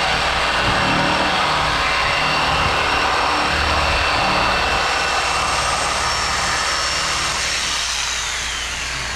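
Corded electric jigsaw running steadily as its blade cuts a curve through pink extruded polystyrene foam board. Near the end the saw is lifted away and the motor winds down, its whine falling in pitch.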